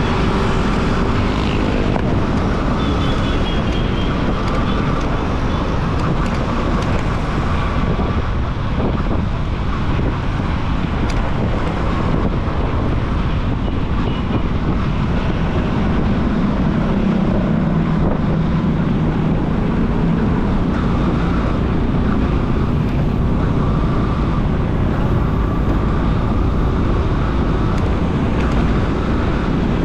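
Motorcycle running at road speed, its engine hum under steady wind rush on the microphone and tyre noise. The engine note strengthens and wavers about halfway through.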